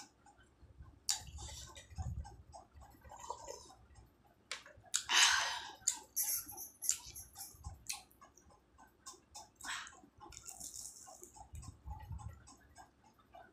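Close-up eating sounds: a samosa being chewed, with wet mouth clicks and smacks over a fast, even ticking. About five seconds in there is one louder, hissy burst.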